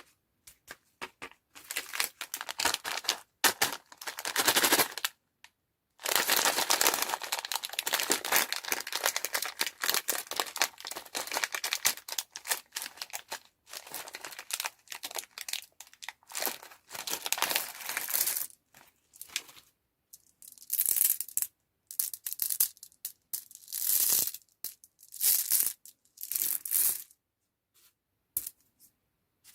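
Plastic candy wrappers and packaging crinkling and tearing as sweets are unwrapped. It comes in irregular bursts, with one long unbroken stretch of crinkling in the first half.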